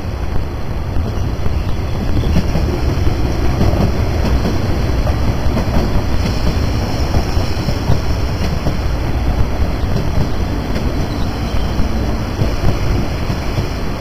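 MTR East Rail Line electric multiple-unit train running past, with steady wheel and track noise.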